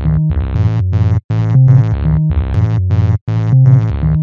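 Electronic background music: a synthesizer riff over a deep bass line, repeating about every two seconds and dropping out to silence briefly twice.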